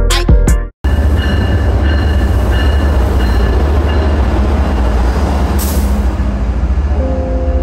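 Trains standing and moving at a covered station platform, an Amtrak electric locomotive beside an MBTA commuter-rail locomotive: a loud, steady rumble with a deep hum and a few faint steady whining tones, and a short hiss of air about six seconds in. It opens with the cut-off end of a music track, and new music comes in near the end.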